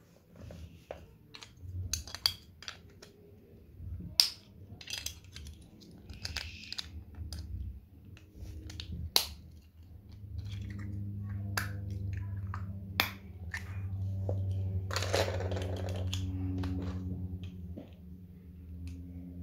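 Small hard plastic Playmobil toy parts clicking and snapping together by hand as a toy wheelbarrow is put together, with sharp clicks all through. From about halfway, a low steady hum runs underneath.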